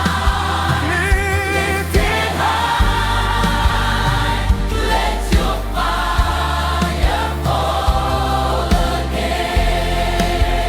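Afro-worship gospel music: a massed choir holding long wordless notes over a steady djembe beat and a deep bass.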